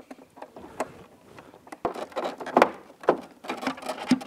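Irregular clicks, knocks and rubbing of hands and a tool working the plastic speedometer display housing loose from a motorcycle dash, the sharpest knocks a little past halfway and near the end.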